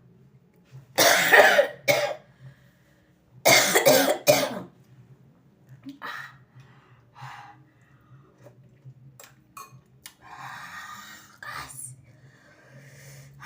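A person coughing hard in two loud fits, about a second in and again at about three and a half seconds, then softer coughs and throat sounds. The coughing comes from hot pepper in a spicy fish pepper soup.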